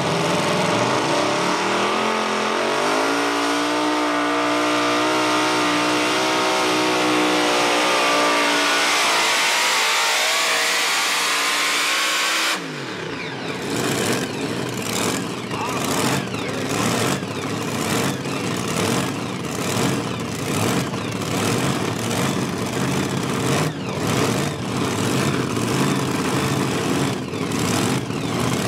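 Twin supercharged engines of a modified pulling tractor at full throttle. The note climbs at launch, holds, then sinks as the engines are loaded down toward the end of the pull, and breaks off suddenly a little under halfway through. After that comes a lower, uneven engine rumble with scattered sharp pops.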